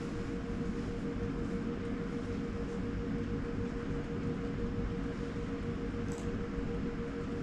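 Steady mechanical hum and low rumble with a constant mid-pitched tone; a faint click about six seconds in.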